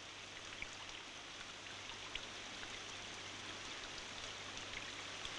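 Steady rain-like hiss with scattered faint ticks, over a constant low hum.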